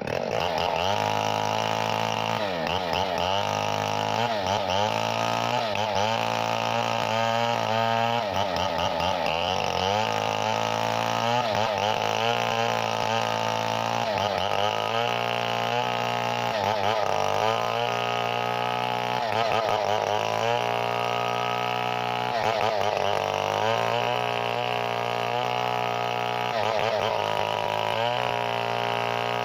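Chainsaw engine running steadily, its pitch dipping and recovering again and again through the stretch.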